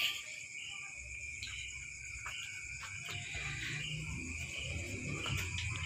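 Crickets chirring steadily, with a faint low rumble and a few soft clicks underneath.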